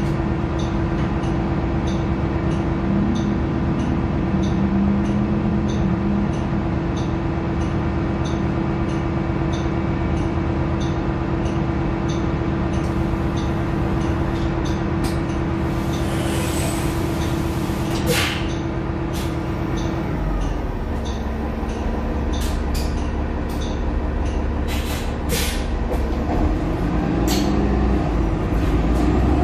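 Cummins L9 diesel engine of a 2021 Nova LFS transit bus running steadily under a faint, regular ticking. Near the middle there is a burst of air hiss. About two-thirds through, the engine note changes and a deeper rumble builds as the bus pulls away.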